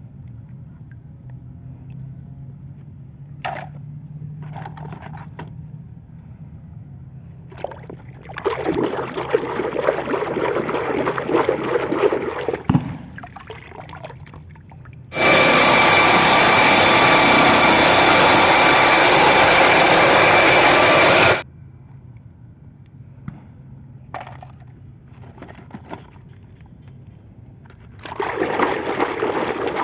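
Water running and splashing in bursts, with a louder steady spray of about six seconds in the middle that stops suddenly.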